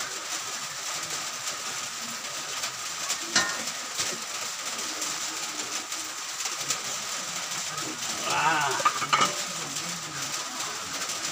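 Stainless steel basin and cleaver clinking and knocking now and then while a slippery eel is handled and scraped clean, over a steady hiss. A brief trilling sound comes about eight seconds in.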